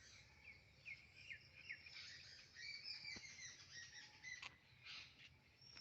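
Faint birds chirping: a run of short falling chirps, then higher twittering, with a few faint clicks.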